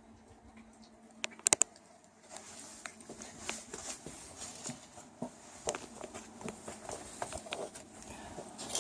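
Test ceiling fan's motor humming faintly, with three sharp clicks about a second and a half in, then irregular clicking and rustling handling noise.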